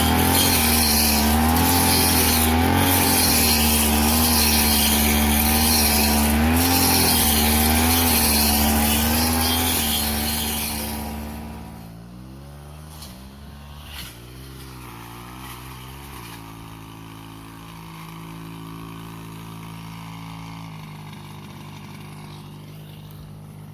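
Grass-cutting machine's small petrol engine running at full throttle, its pitch wavering up and down under the cutting load. About eleven seconds in the throttle is let off and it drops to a quieter, lower idle that wobbles briefly before settling steady.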